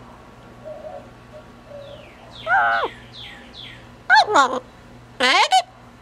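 Double yellow-headed Amazon parrot calling: a falling call about two and a half seconds in, then two quick swooping calls around four seconds and a louder swooping call a second later.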